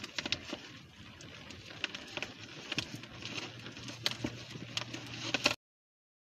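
Crinkling and light tapping of packaging being handled as an art book is unwrapped: irregular sharp clicks and crackles over a faint low hum. The sound cuts off abruptly to silence near the end.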